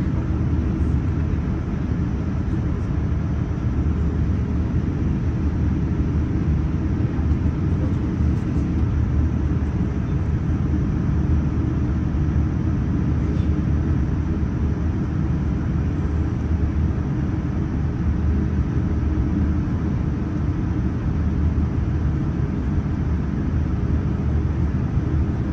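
Steady low rumble inside the cabin of a Boeing 787-9 airliner, from its Rolls-Royce Trent 1000 engines and the airframe, with an even hiss above it.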